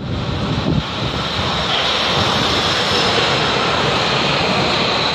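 Hamburg U-Bahn train pulling into an underground station: a loud rushing rumble of the train and its wheels on the rails, echoing in the station. It swells within the first second and then holds steady, with a high whine joining about two seconds in.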